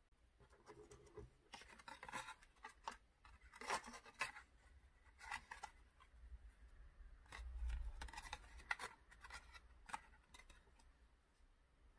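Faint rustling and crinkling of a thin red ribbon being threaded through and tied onto a small paper card bookmark, in spells of handling with short pauses and a few light ticks.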